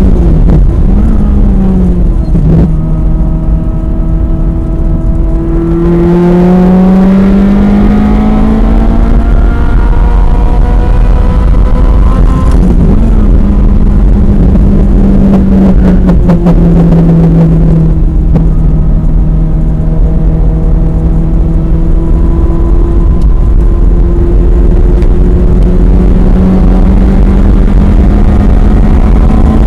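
Ferrari F355 Challenge's 3.5-litre V8 at racing speed, heard from inside the cabin over steady wind and road rumble. The revs dip at the start and climb steeply for several seconds. They drop again in steps through the middle, then climb slowly toward the end.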